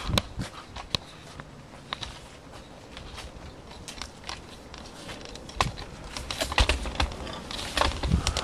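Handling noises: scattered clicks and taps, with a few heavier knocks and thumps in the second half.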